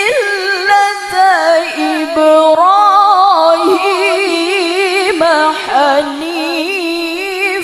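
A woman reciting the Qur'an in the melodic tilawah style through a microphone and PA, holding long ornamented notes with a wavering vibrato and sliding up and down in pitch.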